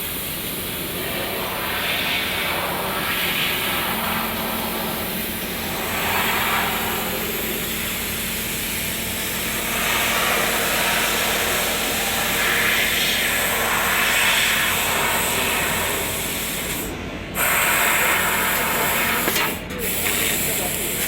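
Senfeng CNC laser cutter cutting 3 mm sheet metal: a steady hiss that swells and eases every few seconds over a steady hum, cutting off briefly twice near the end.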